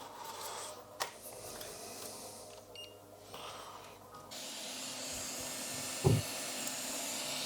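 Hot-air rework blower switching on about four seconds in and blowing with a steady hiss to heat the CPU for removal. Before it, a few sharp clicks of handling; a short low thump about six seconds in.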